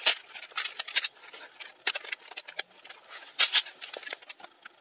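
Hands handling parts of a disassembled keyboard, setting the small controller circuit board into the plastic case. Irregular light plastic clicks, taps and scrapes, loudest just after the start and again about three and a half seconds in.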